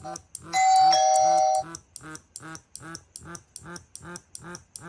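A two-note ding-dong doorbell chime sounds once, about half a second in, over a small vibration motor buzzing in short, even pulses, about two and a half a second, with a tick on each pulse: the device's alert going off.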